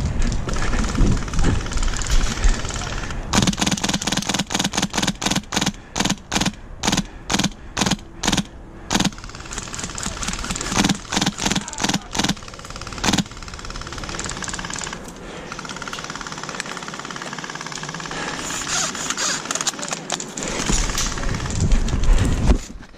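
Footsteps of a player moving at a run: an even series of thuds, about two to three a second, from a few seconds in until past the middle, over steady noise.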